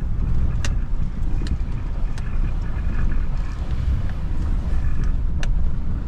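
Steady low rumble of a vehicle driving, heard from inside, with a few sharp ticks or rattles scattered through.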